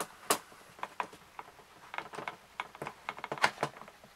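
Irregular plastic clicks and knocks from the clamshell housing of a Ryobi EID 600 RS impact drill being handled and pulled apart for disassembly. The loudest knocks come about a third of a second in and at about three and a half seconds.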